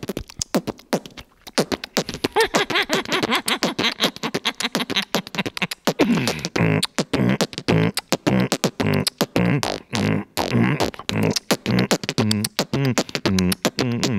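Human beatboxing into a handheld microphone with the hand cupped around mouth and mic: rapid kick and snare clicks, with a hummed pitched line over the beat from about two seconds in, and a steady pulsing low bass kick pattern from about six seconds on.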